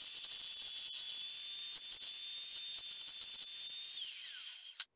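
Evolution R355 carbide-tipped metal-cutting chop saw running and cutting through 1/4 inch by 2 inch steel flat bar: a steady high hiss with a whine over it. Near the end the whine falls in pitch as the blade winds down, and then the sound cuts off suddenly.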